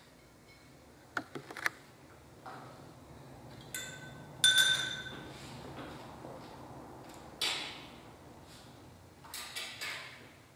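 Drinking glasses being handled on a tabletop. There are a few light knocks, then two ringing glass clinks about four seconds in, and more knocks later.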